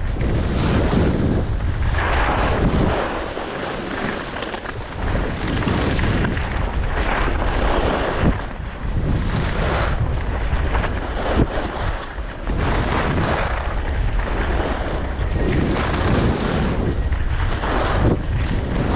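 Wind rushing over a GoPro action camera's microphone while skiing downhill, a heavy steady rush that surges and eases every few seconds.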